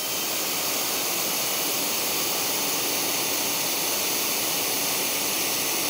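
Pressure washer spraying through a Ridge Washer 40-degree 4.0 fan nozzle: a steady, even hiss of high-pressure water spray.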